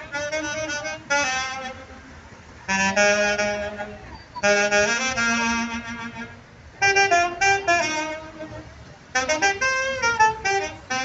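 Saxophone playing a lively melody in short phrases, with brief pauses for breath between them.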